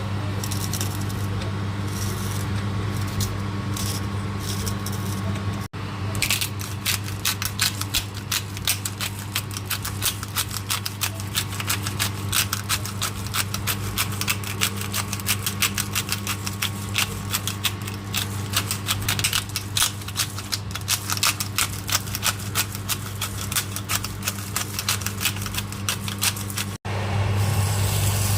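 Kitchen cooking sounds: dense, irregular clicking and crackling over a steady low hum. The clicks are sparse at first and thicken after about six seconds.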